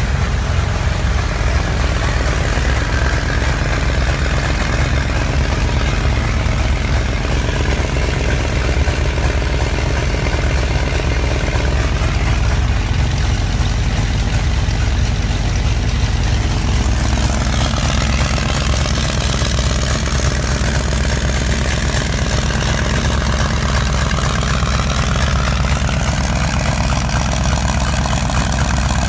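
A 1931–32 Ford roadster's engine idling steadily.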